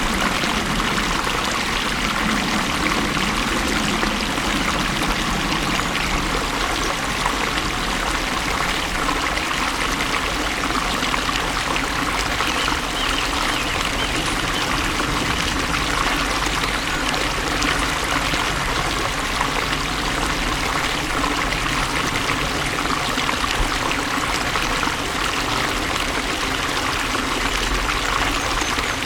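Water flowing steadily in a stream, a continuous even rush with trickling.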